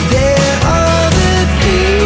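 Background rock music with drums, bass and a sliding lead melody line, in a grungy style.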